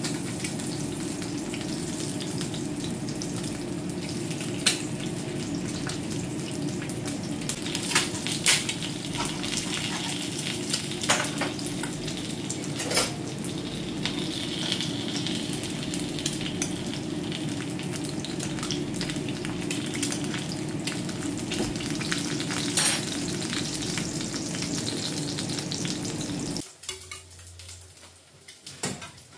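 Eggs frying in hot oil in a frying pan, a steady sizzle, with occasional sharp clinks of metal utensils against the pan and plate. The sizzle cuts off suddenly near the end.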